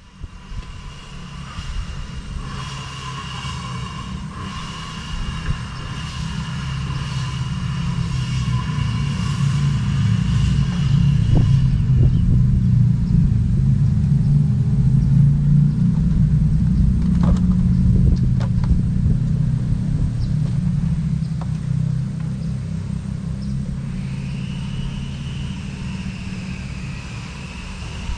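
Low engine rumble passing by, swelling for about fifteen seconds, then slowly fading. A few faint clicks sound in the middle, and a thin high steady tone is heard in the first half and again near the end.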